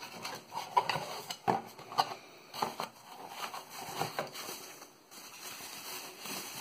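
Unboxing handling: a cardboard box being opened and a plastic-bagged battery charger lifted out, with irregular rustling of the wrapping and light knocks against the box.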